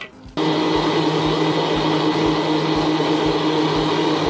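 Electric blender switching on suddenly about half a second in and running steadily with a hum, grinding ice cubes, peach pieces and sugar into juice.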